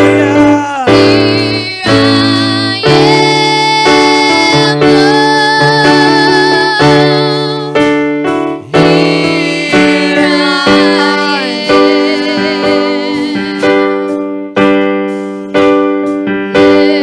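Music: an electric keyboard playing slow, held chords, each struck and then fading, with a voice singing over it.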